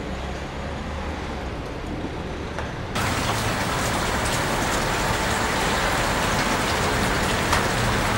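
Steady rushing noise with a low rumble beneath; about three seconds in it jumps suddenly louder and brighter, then holds steady.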